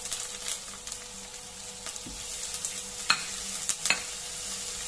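Chopped onion sizzling in hot oil in a nonstick pot while being stirred with a silicone spatula: a steady frying hiss with scattered crackles, and two sharper clicks about three and four seconds in.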